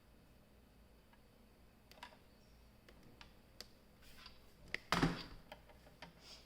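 Faint, irregular light clicks and ticks of small plastic cable connectors being handled and fitted to motherboard headers, with one louder rustling knock about five seconds in.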